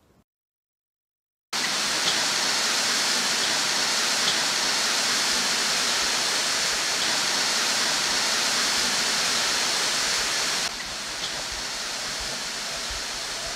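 After about a second and a half of silence, a steady hiss of rushing noise cuts in sharply, like a waterfall or static. It drops a little in level about eleven seconds in.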